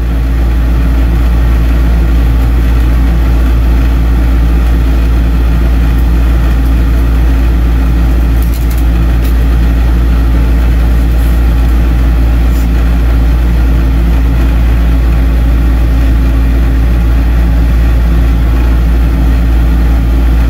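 Steady low rumble of a vehicle engine and road noise, as heard from inside while driving at an even speed.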